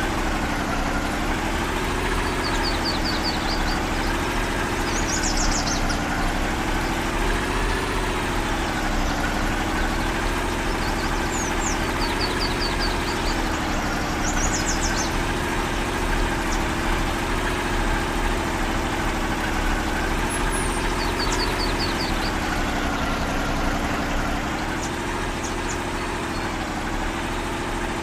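Off-road vehicle's engine running steadily at low revs, its pitch rising and falling gently every couple of seconds. Short high ticking trills come and go on top.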